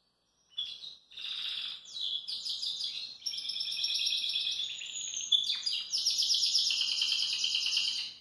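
Domestic canary singing a long, continuous song of fast rolling trills, high-pitched, starting about half a second in and breaking off suddenly at the end.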